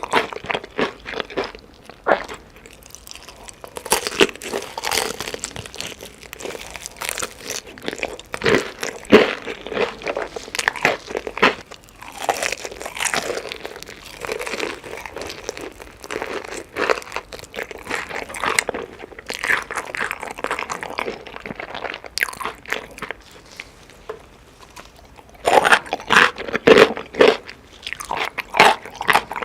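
Close-up chewing and biting of chicken: crisp crunching and crackling bites followed by wet chewing, in irregular bursts, with a brief quieter pause near the end before a loud run of crunches.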